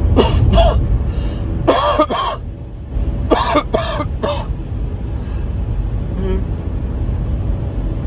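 A man with a head cold coughing in three short fits of two or three coughs each over the first four and a half seconds, with a steady low rumble underneath.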